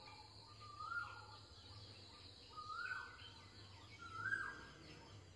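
A bird calling in the background: four short calls, each rising to a held note and then dropping away, about one every second and a half, over a faint steady high whine.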